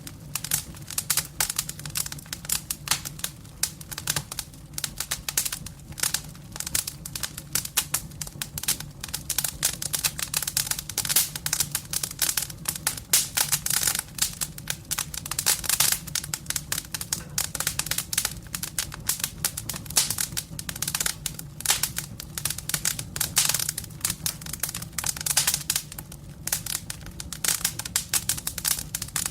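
Wood fire crackling: dense, irregular snaps and pops, with a low steady rumble of the flames beneath.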